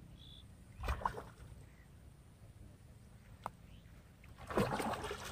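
Hooked fish thrashing at the water's surface close to the bank, splashing twice: a short splash about a second in and a longer, louder one near the end.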